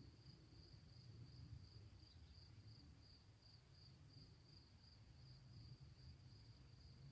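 Near silence with faint insect chirping: a high, thin pulsing note about three times a second, over a low background rumble.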